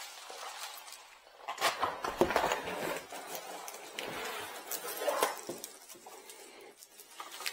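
Unpacking noises: packaging rustling and parts being handled, with light clicks and knocks, loudest about two seconds in and again briefly near the five-second mark.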